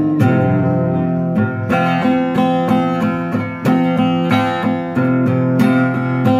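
Acoustic guitar strummed in a steady rhythm, about two to three strokes a second, its chords ringing on between strokes.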